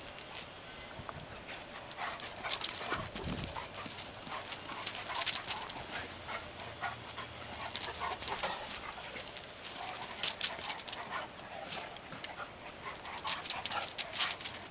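Two Greater Swiss Mountain Dogs romping and chasing, their claws clicking and scrabbling on concrete in quick clusters of sharp ticks that come and go as they run and turn.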